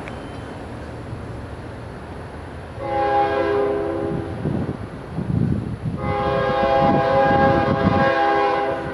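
Diesel freight locomotive's multi-tone air horn sounding a short blast about three seconds in, then a long blast from about six seconds in, as the crossing signal when approaching the grade crossing. Underneath is the low rumble of the locomotive and train, growing louder as it nears.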